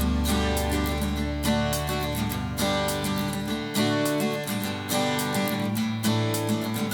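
Background music led by a strummed acoustic guitar, with a steady bass line that drops out about halfway through.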